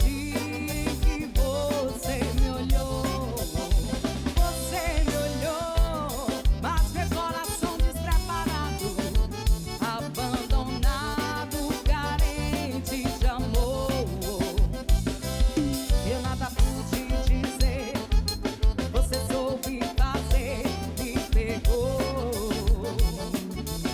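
Live band music: a drum kit keeps a fast, even beat under a bending melody line.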